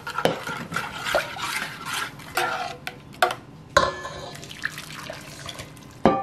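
A metal spoon stirring a thin liquid in a stainless steel saucepan and clinking against its sides. The liquid is then poured and scraped from the pan onto chopped cucumbers in a stainless bowl. Near the end comes one sharp, ringing clink of the spoon on metal, the loudest sound here.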